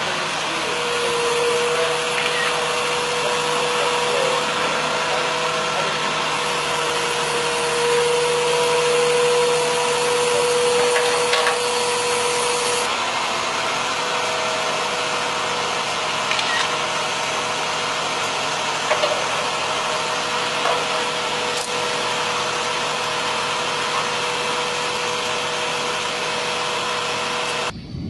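An engine running steadily with a droning whine that steps up slightly in pitch about halfway through, and a few faint clicks.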